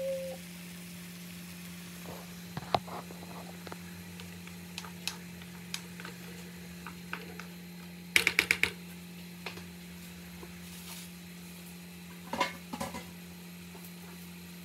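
Wooden spoon stirring vegetables in a frying pan, with scattered knocks and scrapes against the pan and a quick run of taps about eight seconds in, over a steady low hum.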